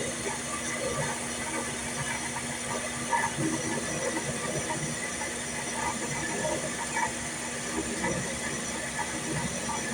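Shop Fox 6x10 benchtop metal lathe running with a steady motor hum, with scattered light ticks and rattles as it turns a test cut through its new compound slide.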